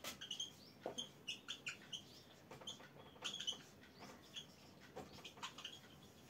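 Dry-erase marker squeaking on a whiteboard in many short, irregular high strokes as words are written, with light ticks of the tip against the board.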